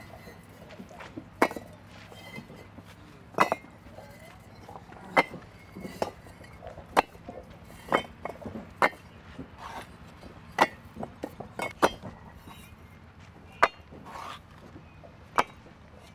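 Fired clay bricks clinking against each other as they are handled and stacked. Sharp, irregular knocks come every one to two seconds, about a dozen in all.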